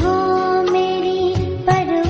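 Background music in Indian film-song style: a long held melody note over a few percussion strikes.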